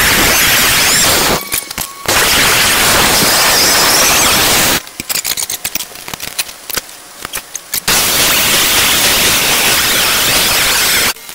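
Angle grinder with a cut-off wheel slicing through quarter-inch steel angle iron, running in long loud cuts. The cutting breaks off briefly about a second and a half in, and stops for about three seconds midway before starting again.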